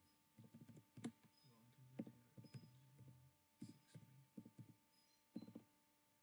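Faint computer keyboard typing: a scattering of quiet key clicks, some in quick runs, over a faint steady hum.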